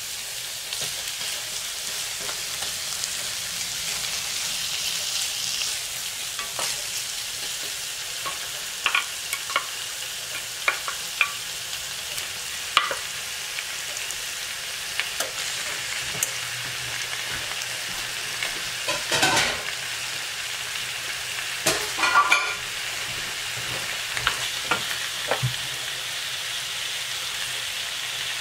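Pork chops frying with chopped red onion in a non-stick pan: a steady sizzle with scattered sharp pops and clicks, several louder knocks and scrapes about two-thirds of the way in.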